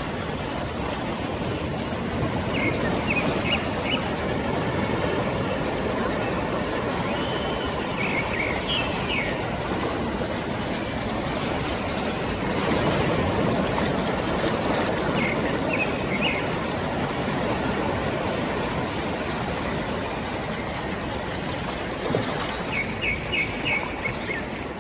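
Steady outdoor ambience, an even rushing noise, with small birds chirping in short quick bursts four times.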